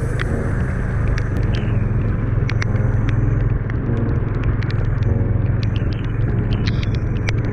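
Yamaha dirt motorcycle engine running steadily while riding over a rough, wet gravel track, with a strong low rumble and frequent scattered sharp clicks and ticks.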